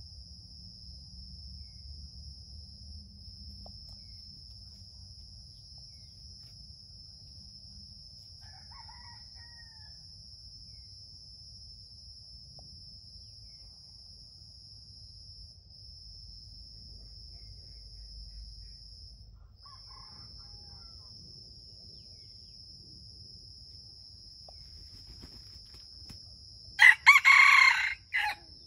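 A rooster crows once near the end, loud and short, over a steady high insect whine. A few faint, distant short calls come earlier.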